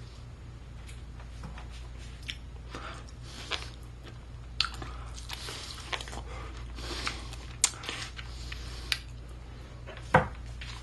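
Person eating a baked chicken drumstick: irregular chewing and biting sounds, with a sharper one near the end.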